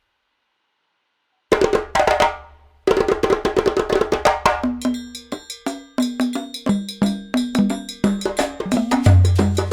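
Background music with a quick, busy percussive beat and a bass line, starting after about a second and a half of silence.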